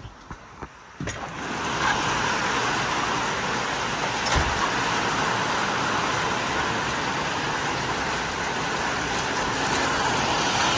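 A click about a second in, then the loud, steady rush of a severe thunderstorm's heavy rain and strong wind.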